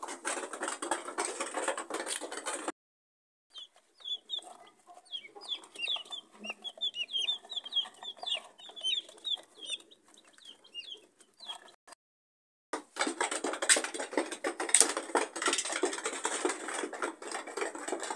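Young chicks peeping, many short high calls in quick succession, each dropping in pitch, over softer, lower hen clucking. It lasts about eight seconds, between stretches of dense, scratchy clattering noise at the start and in the last five seconds.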